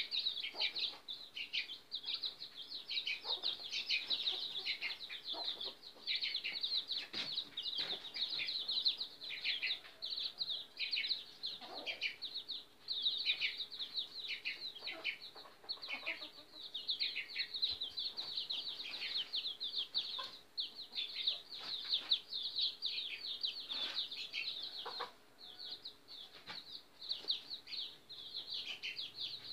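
Small birds chirping rapidly and without pause, many quick, high, falling chirps overlapping, with now and then a short, lower clucking call from the caged fowl beneath them.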